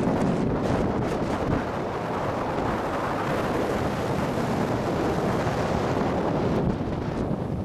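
Steady wind rushing over the microphone of a camera carried by a downhill skier, mixed with the hiss of skis sliding on packed snow.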